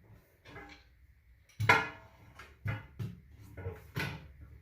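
Steel tire-changing tools clanking against a steel wheel rim while a tire bead is worked on by hand. There are several short metallic knocks, the loudest about a second and a half in and a quicker run of them near the end.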